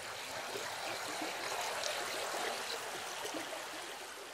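Running water: a stream trickling and splashing steadily, the recorded water sound that the installation plays along with its projected water footage.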